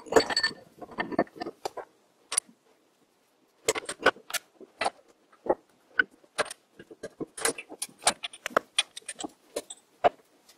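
Metal clinks and sharp clicks as a lathe spindle is slid through its bronze headstock bearings and its belt pulley is handled. There is a cluster of clinks at the start, a short lull, then a long run of quick clicks and taps.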